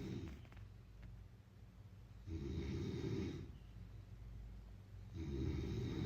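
Snoring in a slow, even rhythm, about one snore every three seconds, with quieter breathing between the snores.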